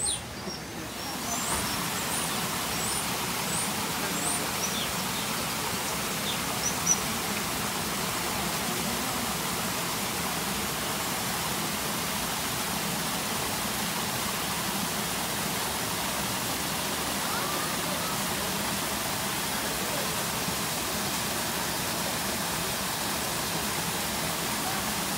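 Steady rush of falling water from a waterfall, with a few short, rising bird chirps over it in the first few seconds.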